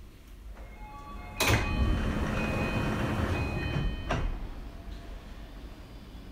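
Passenger doors of a Tokyu 2020 series commuter train sliding open at a station stop: a sudden rush of noise about a second and a half in that lasts under three seconds and stops sharply. A chime of several steady tones sounds over it.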